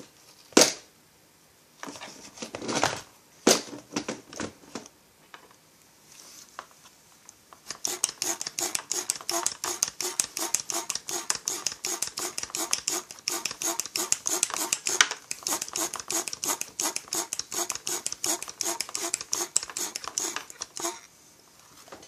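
Hand pressure/vacuum pump with gauge, pumped in a quick, even run of strokes for about thirteen seconds to pressurise a chainsaw fuel tank for a leak test. A few separate clicks and handling knocks come first.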